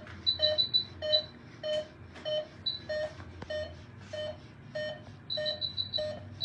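Veterinary patient monitor beeping at a steady pace, a short mid-pitched beep a little under twice a second, in time with the sedated animal's pulse. Twice, a quick run of higher chirps from a monitor sounds over it.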